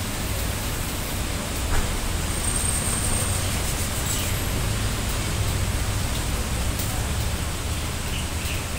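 Steady background noise: a broad hiss over a low rumble, with a faint click about two seconds in.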